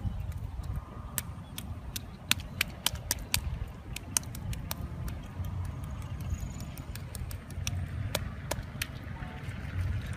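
Hands digging and scooping through wet mud, giving a string of short, sharp wet clicks and squelches at irregular intervals over a steady low rumble.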